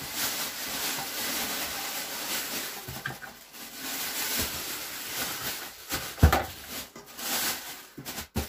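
Rustling and handling noise with scattered small clicks, and one heavier thump about six seconds in.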